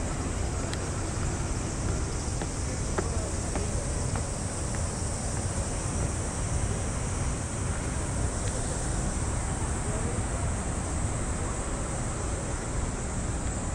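Steady high insect drone, with a low rumble underneath.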